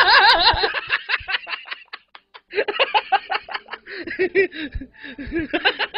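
Laughter in quick rhythmic bursts, with a short break about two seconds in before it starts up again.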